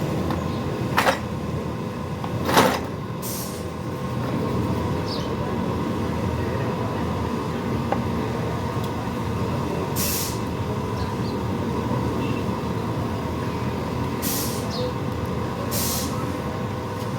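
A machine running steadily, with a faint steady tone, two sharp knocks in the first three seconds and several short hisses later on.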